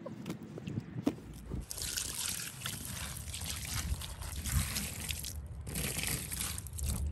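A sponge soaked in thick pine cleaner solution being squeezed over a bucket, the liquid trickling and crackling back in. It comes in two runs: a long one starting about two seconds in and a shorter one near the end, after a brief pause.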